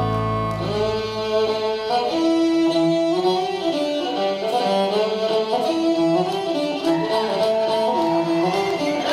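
Instrumental music with a fiddle-like melody of held notes; a low sustained note underneath stops about a second in.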